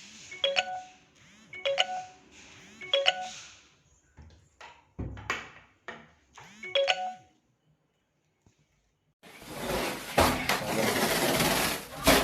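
Bell-like chime notes repeating about once every 1.2 seconds, then a short pause and, about nine seconds in, a stretch of loud, dense rustling noise.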